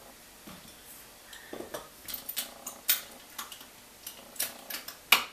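Metal tablespoon clinking and scraping against a stainless steel mixing bowl as sugar is spooned in: a run of irregular clinks and clicks, the sharpest about three seconds in and just before the end.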